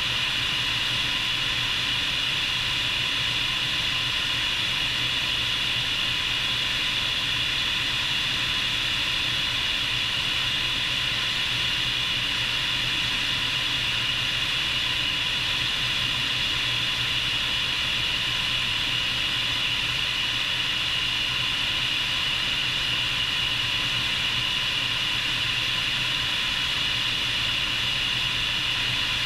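Bell 430 helicopter's twin turboshaft engines and rotor heard from outside on the airframe: a steady high turbine whine over a rushing hiss, with a low hum underneath.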